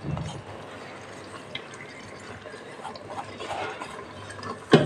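Ground masala paste going into a pot of sambar: soft, wet liquid sounds with a few faint clicks, and a short knock near the end.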